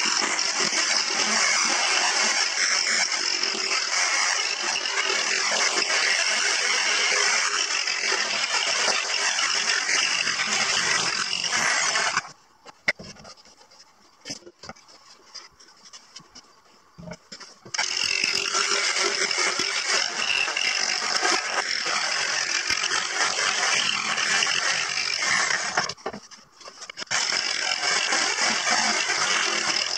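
Electric jigsaw sawing through plywood in long steady runs. It stops about twelve seconds in, leaving a few seconds of quiet with a few small knocks, then starts cutting again and pauses once more briefly near the end.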